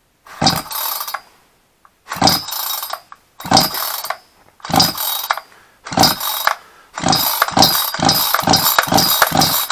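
Sterwins two-stroke chainsaw's recoil starter pulled repeatedly, cranking the engine over without firing while a compression gauge sits in the spark plug hole. There are five separate pulls about a second apart, then quicker pulls back to back. The gauge reads only about 3, low compression that the owner puts down to piston rings not yet run in.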